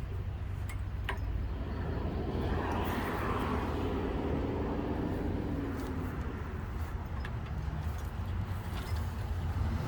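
A vehicle engine running steadily, with a swell of louder road or engine noise from about two to seven seconds in.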